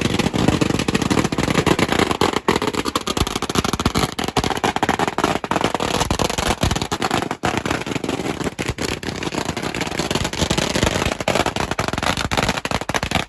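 A long string of firecrackers going off, a dense and continuous loud crackle of rapid bangs.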